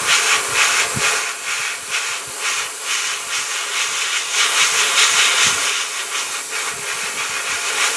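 Airbrush spraying a light coat of black paint through a stencil: a steady hiss of air and paint that swells and eases slightly as the trigger is worked.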